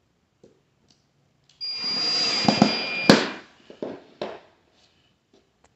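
Cordless drill driving a screw into a plastic bracket: a whirring run of about a second and a half that ends in a sharp click, then a couple of light knocks.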